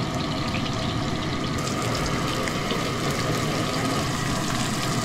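Squid sizzling in a frying pan over the steady hiss of a portable gas burner's flame.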